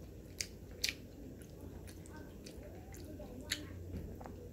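A person chewing food close to the microphone while eating rice and crab by hand, with three sharp clicks about half a second, one second and three and a half seconds in, over a low steady hum.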